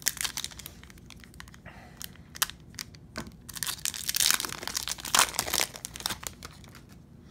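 A foil trading-card pack wrapper being torn open and crinkled by hand: irregular crackling rustles, loudest a little past halfway through.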